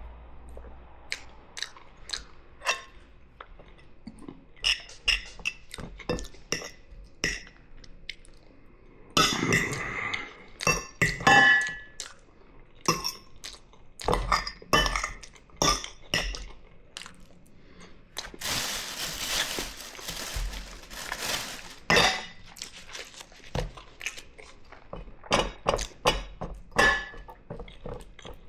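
Cutlery clinking and scraping against a plate in a string of sharp clicks and knocks, a few with a short ring; about two-thirds of the way in, a steadier rush of noise lasts about three seconds.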